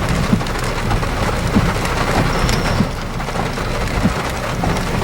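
Heavy rain pouring down with many close drops ticking sharply, heard through a rolled-down car window, over a steady low rumble.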